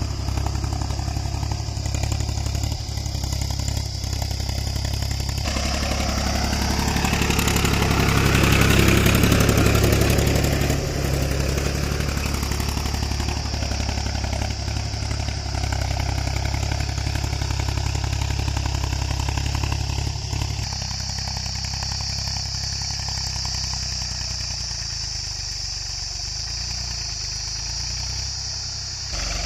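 Mahindra 275 DI tractor's three-cylinder diesel engine running steadily under load as it pulls a tine cultivator through dry soil. It grows louder for a few seconds about a third of the way in, then turns fainter from about two-thirds through as the tractor moves away.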